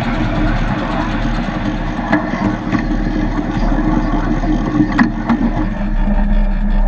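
7¼-inch gauge miniature railway locomotive running steadily as it pulls its train along the track, with a constant low hum. Three sharp clicks come from the running gear, one about two seconds in and two close together about five seconds in.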